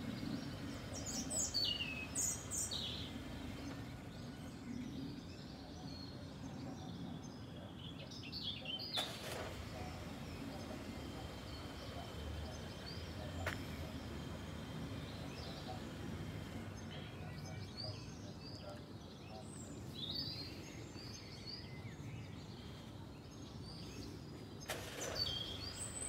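Birds chirping now and then over a low, steady background rumble, with a single sharp click about nine seconds in.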